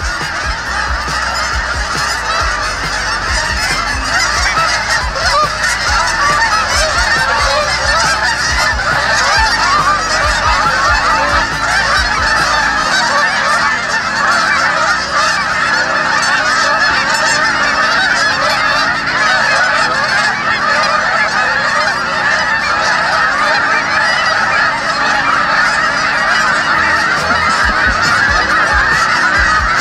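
A large flock of geese in flight, honking, with many calls overlapping into a continuous din.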